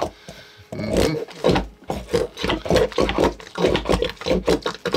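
GAK putty squeezed through a GAK Frrrrt Bucket by its plunger, letting out fart noises. From about a second in, they come as a long, rapid sputtering run.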